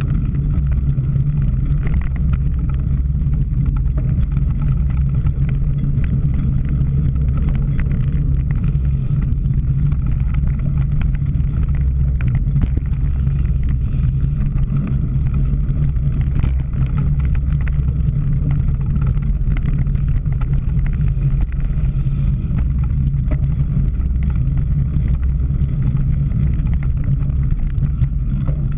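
Steady low rumble of wind and riding noise on a camera carried on a cyclocross bike, with scattered small knocks and rattles over rough ground.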